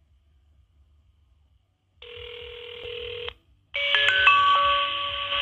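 Telephone line heard through a cordless phone's speaker. About two seconds in, a ringback tone sounds for just over a second. After a short pause, a louder burst of several stepping musical tones plays down the line for about two seconds.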